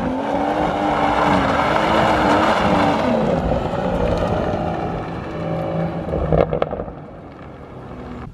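BMW M140i's B58 3.0-litre turbocharged straight-six, exhaust with a double resonator delete, pulling away hard with an upshift about three seconds in, then fading as the car drives off. A few sharp cracks come from the exhaust as it fades.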